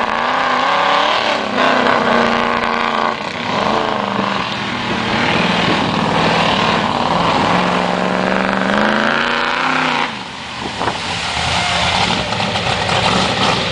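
Chevy big-block V8 engine in a Jeep, revving hard, its pitch climbing and falling several times, with a short drop in level about ten seconds in.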